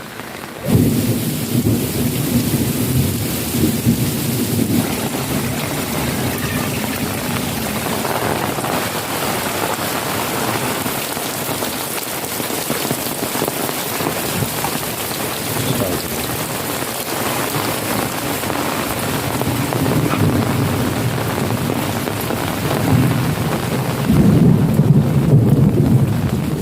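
Heavy rain pouring steadily, with low thunder rumbling that swells just after the start and again near the end.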